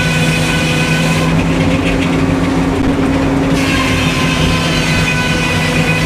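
Sawmill running: a steady engine drone with a constant hum, the high hiss of the cut fading out for a couple of seconds about a second in, then returning.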